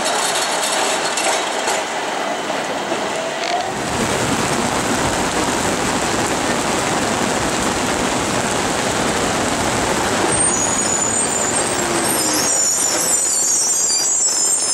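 Articulated tram rolling past close by on wet rails: a steady rumble of wheels on track under a hiss of rain, with a high squeal setting in about ten seconds in.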